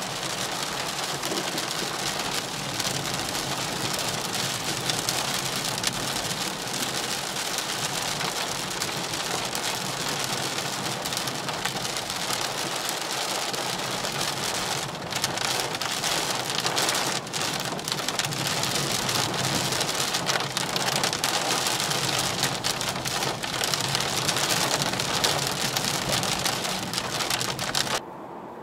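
Rain falling on a car's roof and windscreen, heard from inside the cabin while driving: a dense hiss with fine drop clicks. It drops away abruptly near the end.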